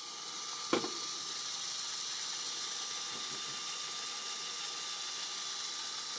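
Two Lego Power Functions train motors running steadily with a soft whir as the locomotive is held with its wheels off the track, with one sharp click a little under a second in.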